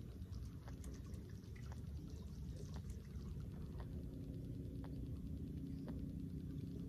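Outdoor marsh ambience: a steady low rumble with faint trickling of shallow floodwater and scattered small ticks. A faint steady hum joins about halfway through.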